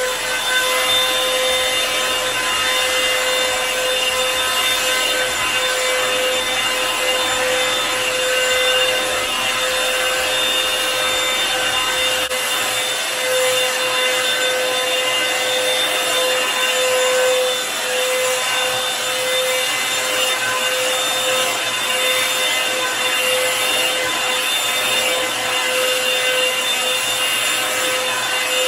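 Revlon One-Step hair dryer brush running on hair: a steady rush of air under a constant motor whine.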